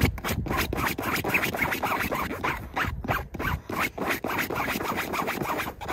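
A small dog's paws digging and scratching at the fabric seat of a folding camping chair: a fast, unbroken run of scratching strokes.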